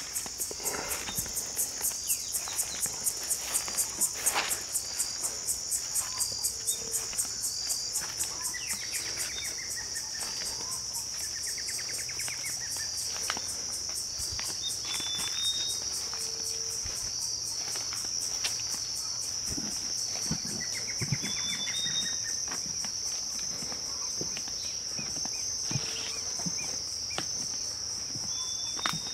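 Steady, high-pitched chorus of insects in a forest at dusk, pulsing fast and strongly for the first several seconds, with footsteps through grass and leaf litter along a trail and a few short chirps and trills.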